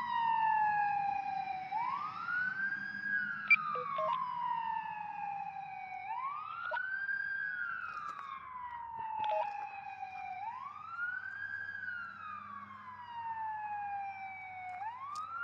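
Fire truck siren wailing in a slow repeating cycle. Each cycle rises quickly to a high note, holds briefly, then slides slowly down, repeating about every four seconds.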